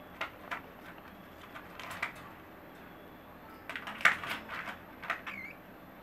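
Irregular sharp clicks and taps from young cockatiels pecking and scrabbling in their cage, most of them clustered about four seconds in, with a short high chirp near the end.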